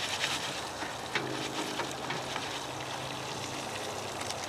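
Portable butane camp stove burning under a foil-covered pot of oil and popcorn kernels: a steady hiss with oil sizzling in the pot and a few light ticks.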